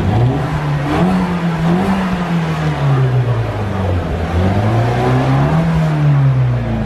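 Nissan Silvia S15's engine being revved twice, each time climbing in pitch, holding briefly and falling back.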